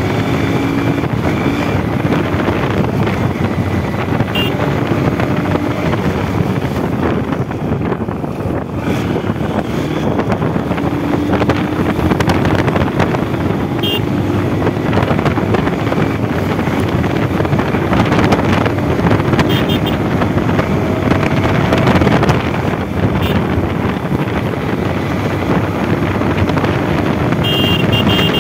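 Motorcycle running at road speed, its engine note drifting gently up and down with the throttle under heavy wind noise on the microphone. A few short high beeps sound near the end.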